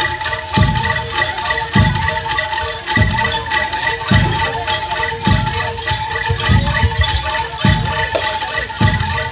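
Jaranan (kuda lumping) accompaniment music: deep drum or gong strokes about once a second under a steady, held high tone, with clattering percussion on top.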